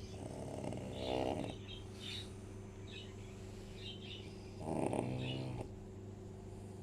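French bulldog snoring: two long, rasping snores about four seconds apart, each lasting about a second.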